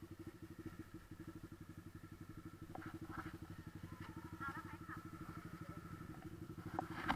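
Motorcycle engine idling steadily with an even, rapid pulse of about ten beats a second. Faint voices are heard over it.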